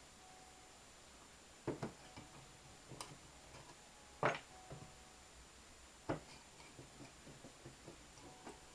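Metal legs of a homemade burner stand being unscrewed from its plate and handled: four sharp metal knocks, the loudest about midway, with lighter ticks between.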